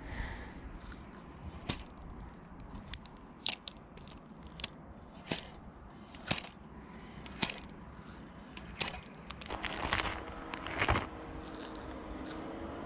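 Scattered sharp clicks and ticks, one every second or so, then about ten seconds in a denser burst of crinkling as a plastic soft-bait packet is handled.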